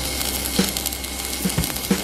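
Background music with a drum beat, over the steady crackling hiss of a stick (arc) welder burning an electrode into steel plate.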